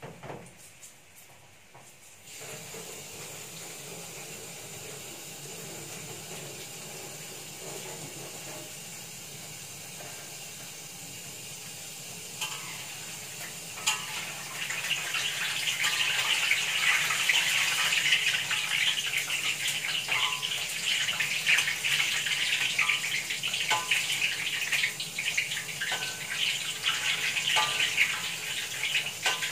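A tap runs steadily into a stainless-steel sink. From about halfway, a louder hiss joins it: banana-fritter batter sizzling in hot oil in a wok, with a few sharp clicks of the spatula.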